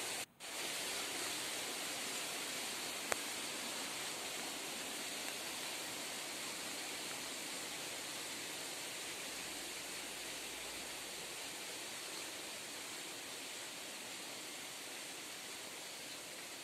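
Steady, even hiss of outdoor background noise with no voice. It drops out briefly just after the start, and there is one small click about three seconds in.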